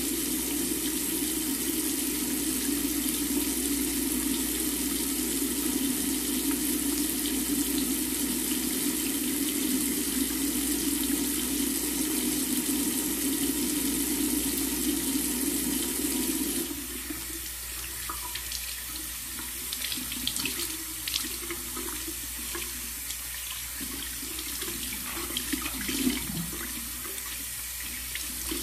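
Bathroom sink faucet running with a steady rush of water while a face mask is rinsed off, cutting off abruptly about two-thirds of the way through. After that only scattered small splashes and taps are heard.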